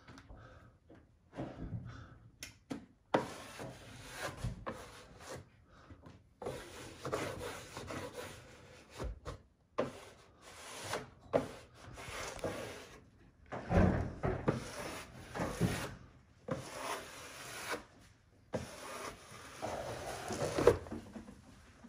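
Repeated rubbing strokes of a hand-held smoothing tool swept across freshly hung ceiling wallpaper, an irregular run of swishes that start and stop, with the strongest strokes about two-thirds of the way in and near the end.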